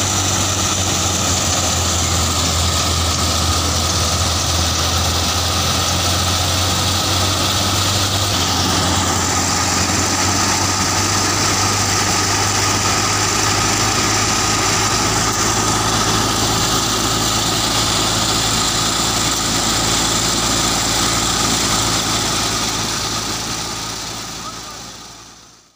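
Tractor-driven wheat thresher running steadily under load, the tractor engine and the thresher's spinning drum and belt pulleys making a constant low drone with a steady high whine. The sound fades out near the end.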